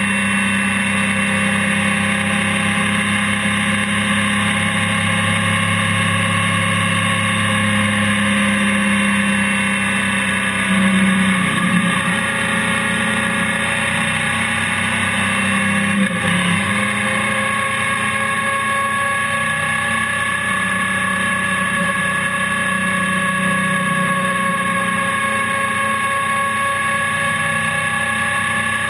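Honda NC700X parallel-twin motorcycle engine running steadily at road speed, mixed with wind and road noise, as heard from a camera mounted on the bike. The engine note wavers briefly about halfway through, then rises slowly in pitch.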